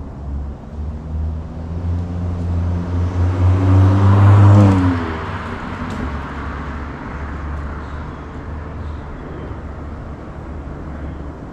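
Acura Integra's engine running through an EOS axle-back exhaust, pulling under throttle with a drone that grows louder and rises slightly to a peak about four to five seconds in. It then backs off to a steady lower drone.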